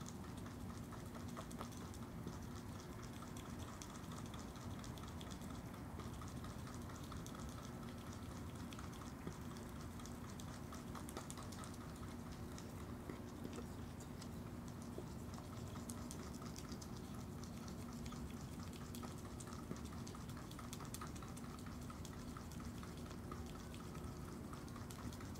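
Virginia opossum chewing and licking an ice cream drumstick, a steady run of small wet clicks and smacks.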